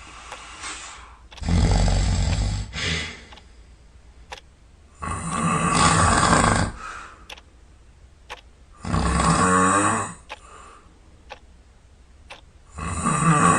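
Sleeper snoring in a regular rhythm: a loud snore roughly every four seconds, each lasting a second or more, with quieter breaths in between.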